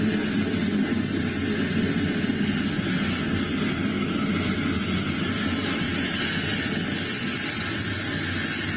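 Double-stack container well cars of an intermodal freight train rolling past: a steady rumble of steel wheels on rail.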